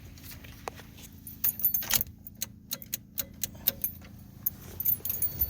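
Hands wiggling and handling wiring and connectors under a truck's dash: irregular light clicks and small rattles of plastic and metal, with a cluster of them near the middle.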